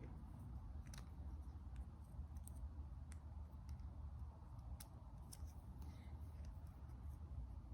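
Faint handling sounds: scattered light clicks and taps of multimeter probes and a spark plug being handled, over a low steady hum.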